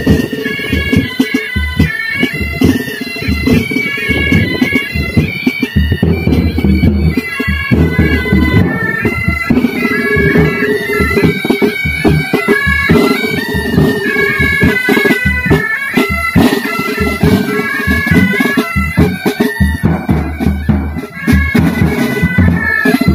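Military pipe band playing a march: bagpipes hold a steady drone under a melody stepping from note to note, while side drums and a bass drum beat time.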